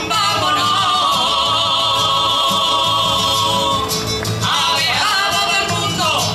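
A women's choir singing together, accompanied by acoustic guitar and hand-clapping. They hold one long note for about the first four seconds, then start a new phrase that rises and falls.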